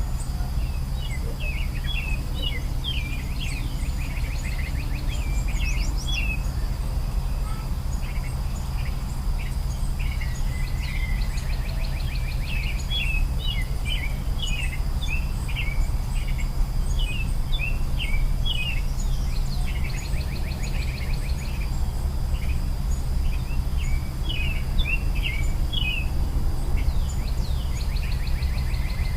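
Birds chirping, with repeated quick trills, over a steady high insect drone and a steady low rumble.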